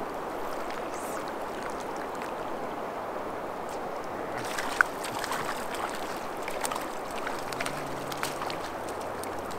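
Steady rush of a shallow river's flowing water, with a single sharp click about five seconds in.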